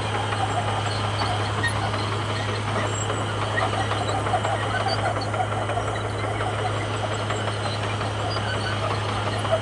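Komatsu bulldozer's diesel engine running steadily, with an unbroken low drone.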